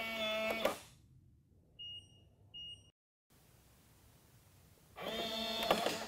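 Weiser Kevo Bluetooth deadbolt's motor throwing the bolt after the lock is touched: a steady electric whir lasting under a second, followed by two short high beeps. Near the end the motor runs again for about a second.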